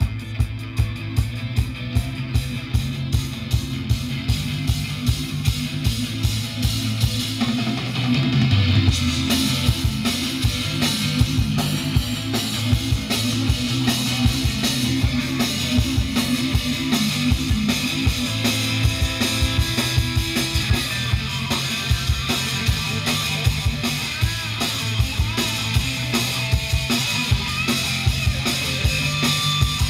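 Live rock band playing: electric guitars, bass guitar and a drum kit keeping a steady beat. About eight seconds in, the full band comes in heavier.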